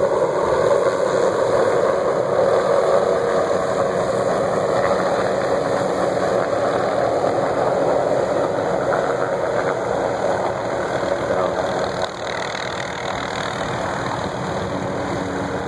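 MD 500-series light helicopter in flight, its turbine and rotor making a steady loud drone that fades slowly, with a small drop in level near the end.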